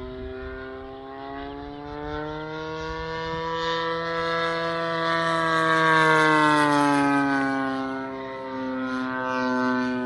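The single-cylinder two-stroke DLE 20cc gas engine of a radio-controlled RV-8 plane runs at high throttle in flight; the engine is new and being broken in. Its note rises in pitch and loudness as the plane passes closest, about six seconds in, then drops as it flies away.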